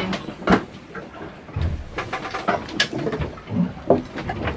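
Scattered knocks and clicks from the boat's fittings inside a sailboat's cabin, with a low rumble and hum underneath; a sharp knock comes about half a second in.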